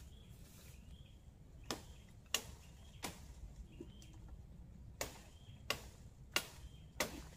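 About seven sharp snaps at uneven spacing as tree branches and twigs are pulled and broken by hand. A faint short chirp repeats in the background.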